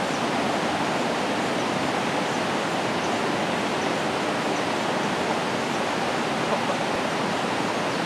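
Steady rushing of a high, muddy river flowing past the bank and over rocky rapids.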